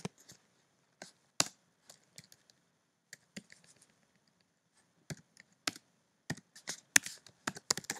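Computer keyboard keys being typed in irregular clicks, a few scattered keystrokes at first, then quicker runs of keystrokes in the last three seconds.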